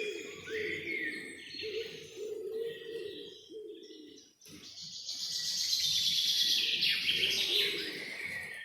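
Wild birds singing. Low repeated cooing calls run under high chirps through the first half. After a brief hush about halfway, a loud, high, rapid trilling song swells and then fades toward the end.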